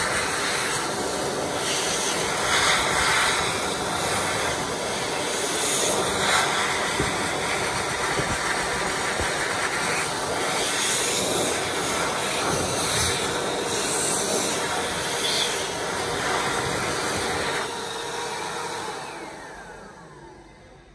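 JD Macdonald Turbo-Slim stainless steel hand dryer blowing at full power, the rushing air changing as hands move in the stream. Near the end it cuts out and the motor winds down with a falling whine.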